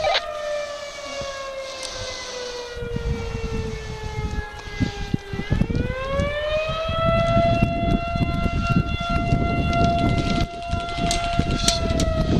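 A siren wailing on one pitch that slowly sinks for about five seconds, winds back up about halfway through, holds steady, and begins to fall again near the end.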